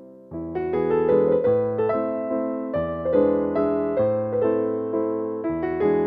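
Background music: a piano-sounding keyboard playing a melody with chords, notes struck about three times a second. After a fading note, a new phrase starts about a third of a second in.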